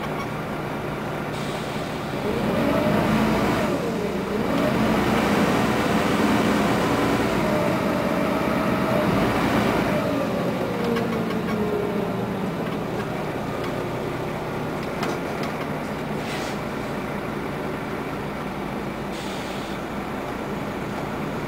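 Scania N94UA articulated city bus heard from inside while under way. The drivetrain whine rises as it accelerates, dips briefly at a gear change about four seconds in, then climbs again and holds. After about ten seconds it falls away and the bus runs on at a steady low drone.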